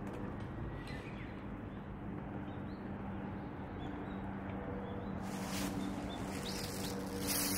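Outdoor ambience: faint bird chirps over a steady background with a low hum, broken by two brief noisy bursts about five and seven seconds in.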